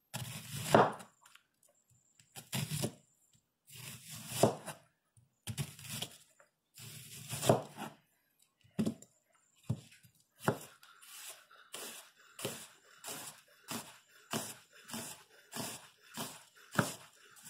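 Chef's knife slicing a sweet Vidalia onion thin on a plastic cutting board, each cut ending in a knock of the blade on the board. The cuts come slowly at first, about one every one and a half to two seconds, then quicken to about two a second about ten seconds in.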